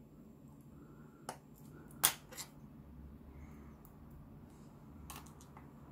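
Small sharp clicks of steel tweezers and tiny parts against a watch movement's metal plates: one faint click, a loud one about two seconds in followed by a lighter one, then a couple more near the end.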